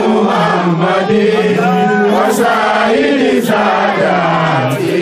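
Men chanting a slow, melodic Islamic devotional chant through a microphone, with long notes that glide up and down without a break.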